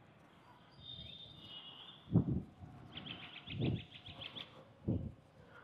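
Small birds chirping: a brief high trill, then a quick run of about eight chirps. Underneath are three short low thumps a little over a second apart, the loudest sounds here.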